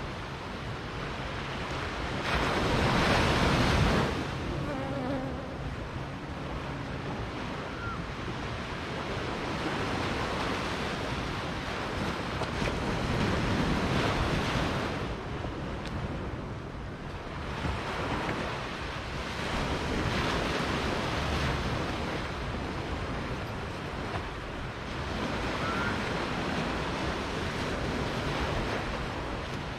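Small sea waves washing up on a sandy beach, the wash swelling and fading every several seconds, loudest about three seconds in.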